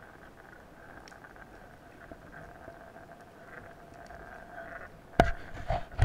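Underwater sound picked up through a diver's camera housing: a low, even hiss with a faint steady hum. About five seconds in come two or three loud, sharp knocks, something bumping against the housing or the speargun.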